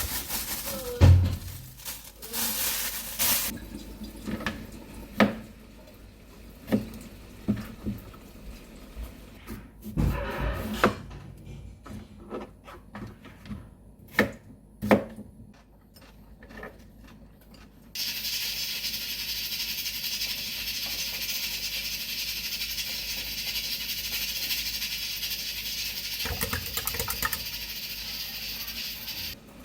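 Scattered knocks and clinks, then from a little past halfway a water tap running steadily into a sink.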